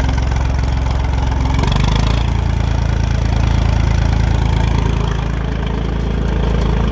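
Old tractor's engine running hard at open throttle while pulling a trailer up a steep dirt track, its note shifting about two seconds in.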